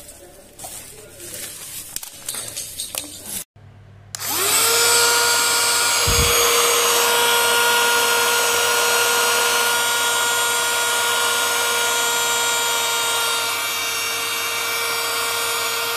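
TRAMONTANO portable car vacuum cleaner switched on about four seconds in: its small motor spins up quickly to a steady high whine over a rushing airflow hiss. Before it starts there are faint handling noises.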